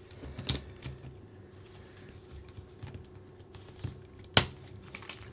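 Small plastic RC car parts clicking and rattling as a steering link is fitted, with one sharp snap a little over four seconds in as a plastic rod end clips onto its ball stud.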